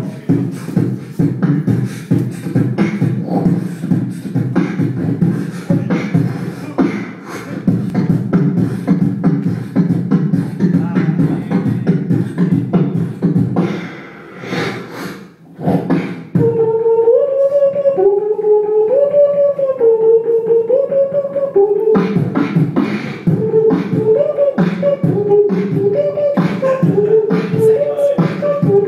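A man beatboxing into a handheld microphone: a fast, dense beat of deep bass kicks and sharp snare clicks. About halfway through, the beat drops out for a pitched vocal melody that steps between notes. A few seconds later the beat comes back in beneath the melody.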